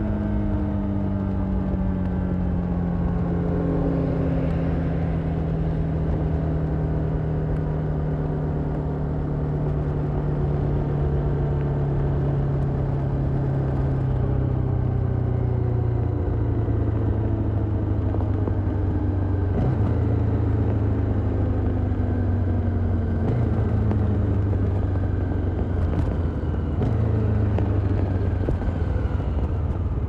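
Honda XRE 300 Rally's single-cylinder engine on the overrun, its note falling steadily as the bike slows, heard from the saddle with wind rush. In the second half a few short clicks come with steps in the engine note, as of downshifts while coming down to a stop.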